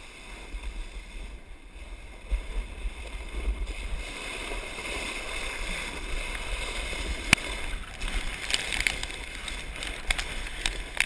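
Volcano board sliding down a slope of loose volcanic gravel: a steady gravelly hiss that grows louder over the first few seconds as the board gathers speed. There is a low wind rumble on the microphone and a few sharp clicks.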